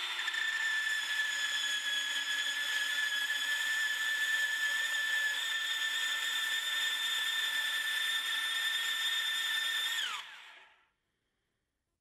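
Bosch 18-volt cordless portable band saw running at a steady high whine for about ten seconds with its blade on a hardened steel padlock shackle, making no headway into it. It then winds down, the pitch falling, and stops.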